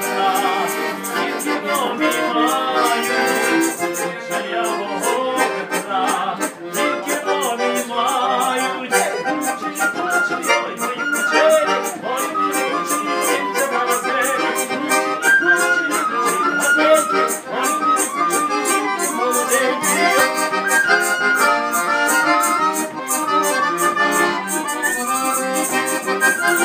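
Live Ukrainian folk music led by a button accordion, with a melody line over steady chords and a regular crisp beat.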